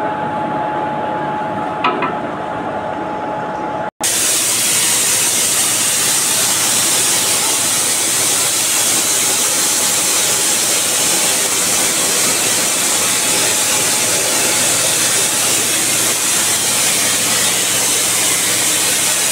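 Compressed air hissing steadily and loudly at the coupling between a locomotive and a coach, as the air-brake hoses are worked. Before that, for the first few seconds, there is a steady machine whine with a single clear tone, with a click near the end of that stretch, and the sound cuts out briefly.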